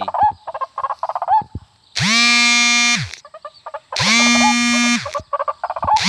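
White-breasted waterhen (ruak-ruak) calling: long, steady, nasal calls about a second each, repeating every two seconds, with short chattering calls between them.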